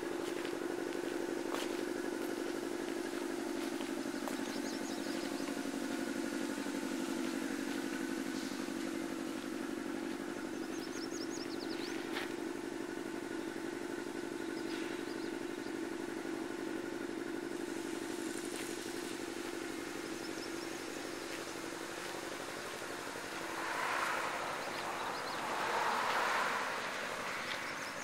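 Toyota Tundra's V8 engine idling steadily, with a few faint high chirps. Two louder rushes of noise come near the end.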